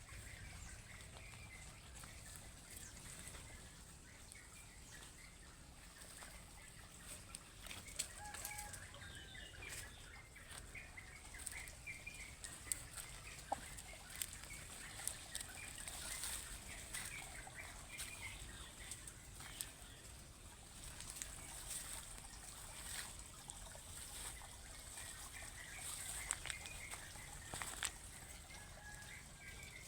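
Village chickens making faint, short clucking calls, with many scattered sharp clicks through the middle.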